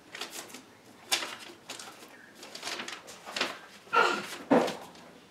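Scattered light knocks and rustles of handling under a kitchen wall cabinet as a marked template is taken down. A brief vocal sound, coo-like, comes about four seconds in.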